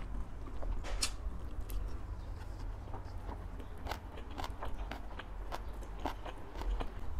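Close-up chewing of a mouthful of spicy long-bean salad, with wet mouth clicks and small crunches at irregular moments. Near the middle there are faint crackles as a boiled egg's shell is peeled by hand.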